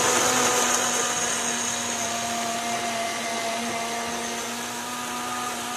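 A BlendJet rechargeable portable blender's motor running steadily as it blends a dragon fruit smoothie. It makes an even whir with a constant hum, growing slightly quieter as the contents turn smooth.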